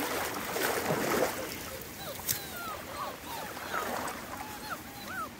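Small Munsterlander puppies whimpering: many short, high, rising-and-falling whines, overlapping and coming two or three a second from about two seconds in.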